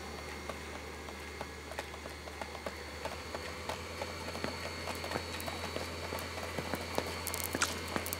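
Conveyor belt running with a steady low hum while plastic pill bottles click and clatter as they are picked up and handled. The clicks come faster and louder toward the end.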